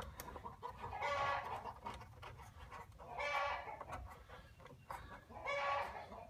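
A chicken calling three times, about two seconds apart, each call short and pitched, with light clicks from wire being handled in between.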